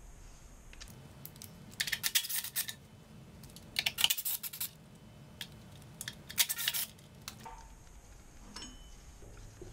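Three short bursts of metallic clicking and rattling as a cordless drill and its 5/16-inch bit are handled and set against the generator's steel frame rail.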